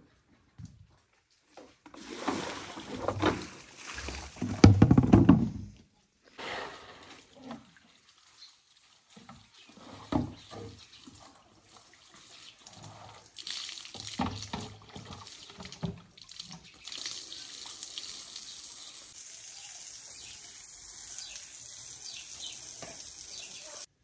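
Water splashing and sloshing in a plastic basin as small citrus fruit is washed by hand, loudest in the first few seconds, then a basin being tipped out and water running steadily for the last several seconds.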